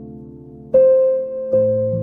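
Soft, slow instrumental relaxation music. A held note fades, then a new note sounds about a second in and another near the end, each ringing out and fading.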